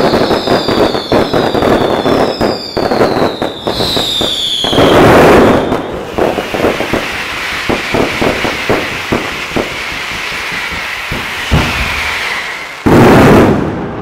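Fireworks display barrage: a rapid run of aerial shell bursts and crackling bangs, with several falling whistles in the first few seconds. A loud burst comes about five seconds in, and a very loud blast comes near the end.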